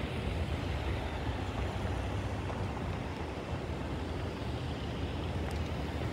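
Steady low rumble of a three-locomotive CN freight train's diesels, heard from far off as the train moves away, mixed with wind on the microphone.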